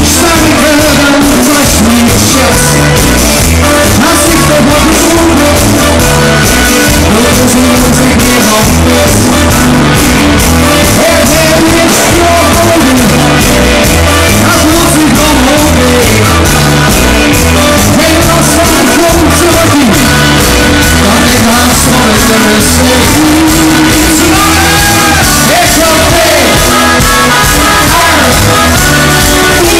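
Live rock band playing loudly, a lead singer over electric guitars, bass, keyboards and drums.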